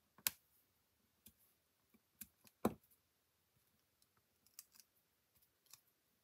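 Faint scattered clicks and taps of card stock and a pen-like pick tool being handled on a tabletop while foam dimensionals are peeled and stuck on. The two sharpest clicks come about a quarter second and two and a half seconds in.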